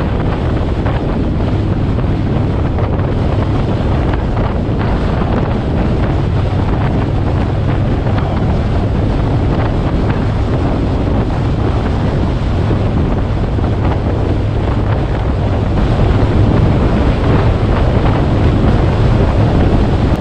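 Heavy wind rush buffeting the microphone on a moving motorcycle, with the 2019 Indian Springfield Dark Horse's V-twin engine running steadily underneath. It gets a little louder near the end.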